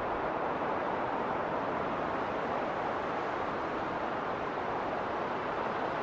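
Winter wind blowing steadily through a snowstorm: an even rushing noise without gusts or breaks.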